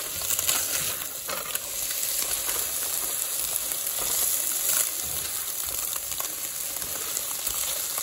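Tofu scramble and diced onions sizzling in a hot skillet, with a silicone spatula stirring and scraping across the pan every second or so.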